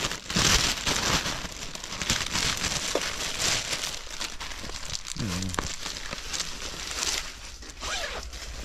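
Crinkling and rustling of handbags being handled and shown, coming in repeated short bursts.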